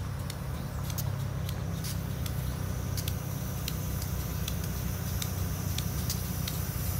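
Diesel-electric switching locomotives rolling slowly at low throttle: a steady low engine rumble, with scattered light clicks over it.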